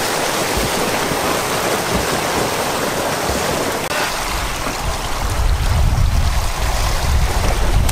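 Splashing and churning water from several swimmers swimming freestyle, a steady rushing wash. From about five seconds in, a low rumble of wind on the microphone comes in under it.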